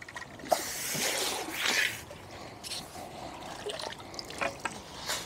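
Water splashing as a hooked carp is drawn into a landing net, loudest from about half a second to two seconds in. Quieter water noise and a few sharp clicks follow near the end.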